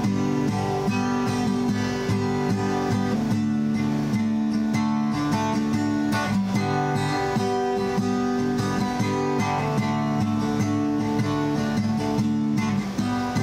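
Guitar strummed steadily, the chords shifting every few seconds.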